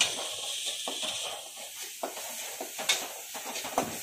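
Spice paste sizzling as it fries in hot mustard oil in a steel karahi. A metal spatula stirring it knocks and scrapes against the pan in four sharp clinks.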